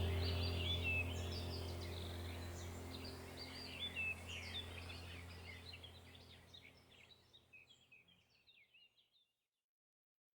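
Background nature-ambient track: a low sustained drone with birdsong chirping over it, fading out to silence about seven seconds in.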